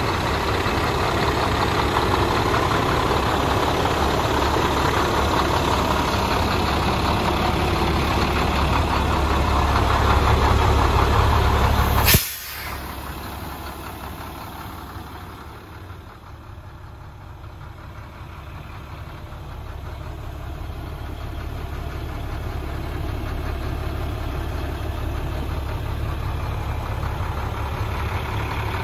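The MaxForce DT inline-six diesel of a 2013 International 4300 dump truck idling steadily. About twelve seconds in there is one sharp knock, after which the idle sounds quieter and duller, then slowly grows louder again.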